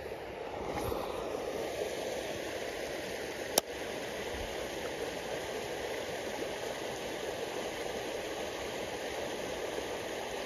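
Creek water running steadily through a shallow ford, an even rushing, with one sharp click about three and a half seconds in.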